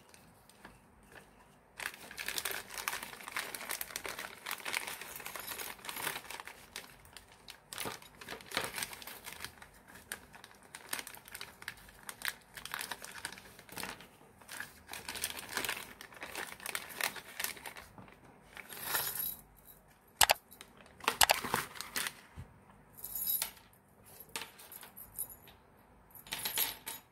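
Clear plastic zip bags crinkling as they are opened and handled, then small metal parts (copper ring terminals and nuts) clinking and clicking together in short bursts, with a couple of sharp clicks about two-thirds of the way through.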